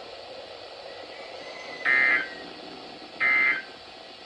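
Two short bursts of Emergency Alert System SAME digital data, the end-of-message code that closes the warning, a little over a second apart over steady radio hiss.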